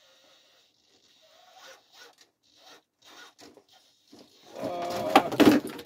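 Traxxas TRX4 scale crawler scraping and rubbing against the carpeted ramp in short rasps as it creeps over the top. About four and a half seconds in, a loud clatter with sharp knocks as the truck tumbles off.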